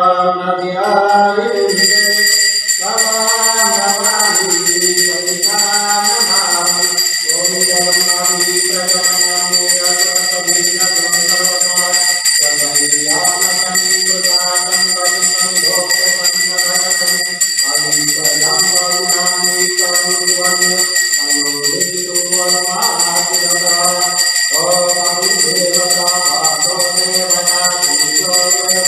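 Devotional Hindu aarti music: singing voices in phrases with jingling tambourine-like percussion. A steady high metallic ringing comes in about a second and a half in and keeps going.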